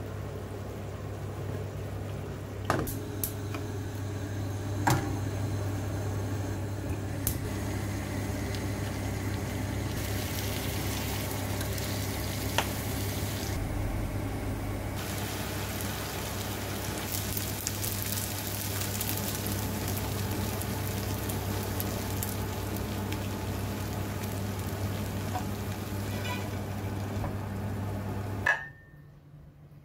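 Beans in tomato sauce sizzling and bubbling in a frying pan on a gas stove, over a steady low hum, with a few sharp clicks. The sound cuts off abruptly near the end.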